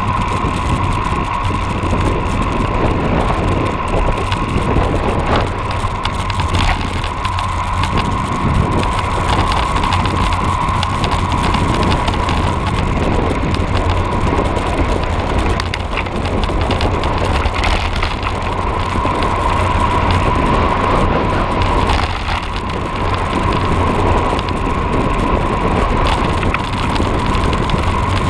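Steady rolling noise of a cross bike being ridden on a road: low tyre and wind rumble with a steady high tone throughout.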